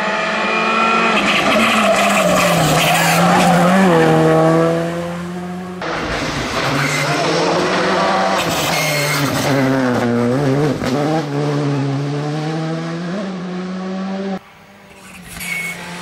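Skoda Fabia R5 rally car's turbocharged four-cylinder engine driven hard through bends, its pitch dropping as it slows for corners and rising again as it accelerates out. Several passes are cut together, with sudden breaks about 6 and 14 seconds in.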